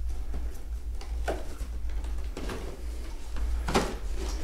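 Loose parts, boxes and packaging being rummaged through by hand, with scattered rustles and clicks and a louder knock near the end, over a steady low hum.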